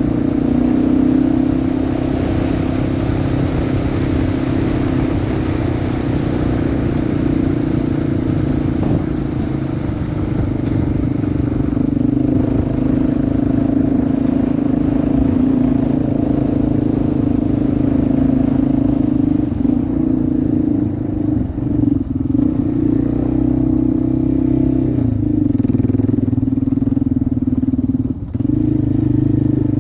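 Kawasaki KLR650's single-cylinder engine running steadily as the motorcycle is ridden along a dirt track, dipping briefly a few times in the last third.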